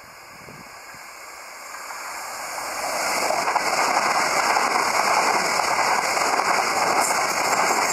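Multiple-unit passenger train approaching and passing close at speed. Its wheels on the rails and the rush of air grow louder over the first three seconds, then hold as a loud, steady rushing rattle while the coaches go by. No horn sounds.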